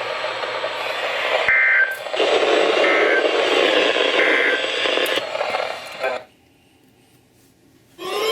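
Weather-radio broadcast hiss with three short data chirps about a second and a half apart, the SAME end-of-message burst that closes an Emergency Alert System message. The signal then cuts to near silence about six seconds in. Just before the end, tones sweeping upward in pitch begin.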